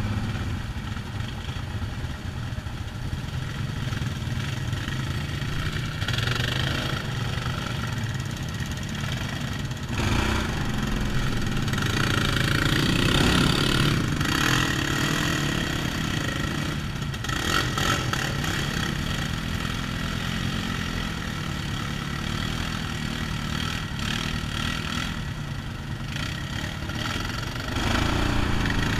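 Quad bike (ATV) engine running at low speed, the revs rising and falling as it works along a rutted mud track, louder around the middle and again near the end; other quads' engines run ahead.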